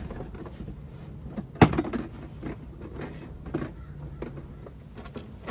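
Plastic interior trim panel on a Jeep Wrangler JL's cargo area being pulled off by hand, its push-in retaining clips letting go with a sharp snap about a second and a half in. Fainter clicks and knocks follow, and another snap comes at the very end.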